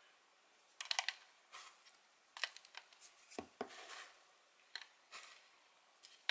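Soft, irregular rustling and scratching of fingers sifting through wheat bran and handling a small plastic cup while picking out mealworms, with a soft knock about three and a half seconds in.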